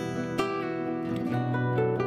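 Instrumental music from guitar and oud: plucked notes picked one after another, each with a clear attack, over held lower tones.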